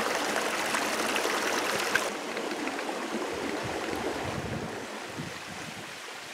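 Creek water running and trickling over rocks, a steady rush that becomes quieter about two seconds in.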